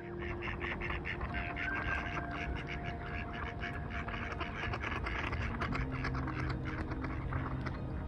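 Mallard ducks quacking in a rapid, continuous chatter of many short calls.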